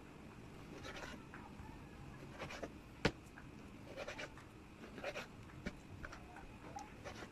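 Kitchen knife cutting raw liver on a plastic cutting board: irregular short scrapes and taps of the blade on the board, with one sharp click about three seconds in.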